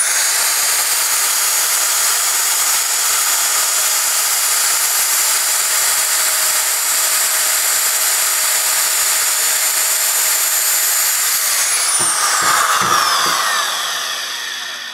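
REMS Amigo portable electric pipe threader running in reverse to back the die head off the freshly cut pipe thread. The motor starts with a quick rising whine and runs steadily, then about twelve seconds in it is switched off and winds down with a falling whine. A few light knocks come as it slows.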